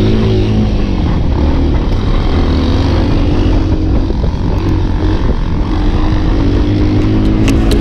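Small off-road motorcycle engine running as it is ridden, its pitch drifting up and down with the throttle over a heavy low rumble.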